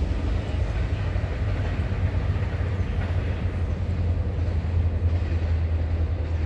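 Steady low rumble of wind buffeting the microphone, with an even noisy hiss over it and no distinct events.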